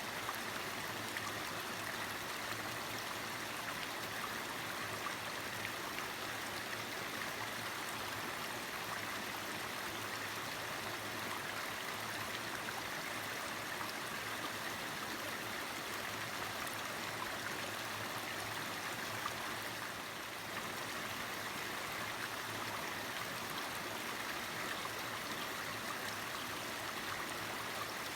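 Mountain valley stream: water running steadily over rocks in an even rushing flow.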